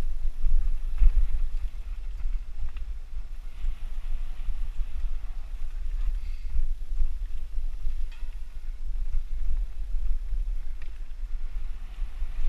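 Wind buffeting a helmet-mounted camera's microphone as a mountain bike rolls fast along a dirt singletrack, with tyres crunching over leaf litter and a few short clicks and rattles from the bike.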